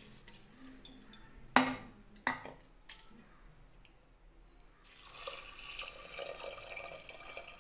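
A steel bowl knocks sharply on the rim of a steel pressure cooker pot a few times as washed split moong dal is tipped in. From about five seconds in, water pours steadily into the pot over the dal.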